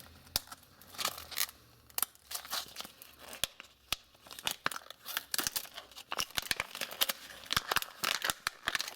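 Plastic clamshell package being pried and torn open by hand: irregular crackling, clicks and tearing of the plastic, growing busier and louder over the second half.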